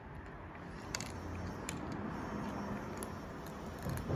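Two cats eating dry cat food, crunching kibble with scattered crisp clicks over a low steady rumble.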